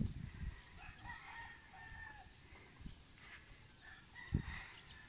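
A rooster crowing faintly: one drawn-out crow about a second in and a shorter call near the end. A soft thump about four seconds in, and small birds chirping near the end.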